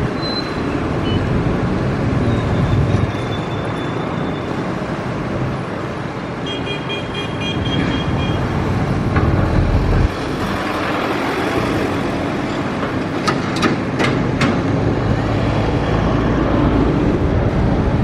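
Komatsu PC200 hydraulic excavator's diesel engine running steadily under load as it digs and loads soil into a dump truck. A few sharp clicks come about two-thirds of the way through.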